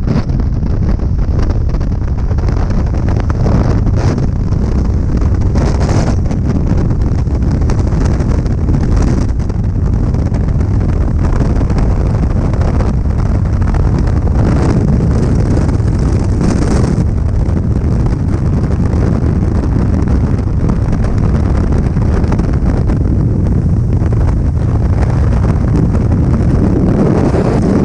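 Loud, steady rush of freefall wind buffeting a helmet-mounted camera's microphone.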